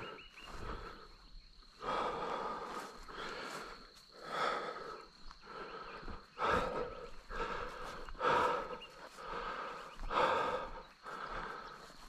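Heavy, rhythmic breathing of a person running hard, with a loud breath roughly every one and a half to two seconds.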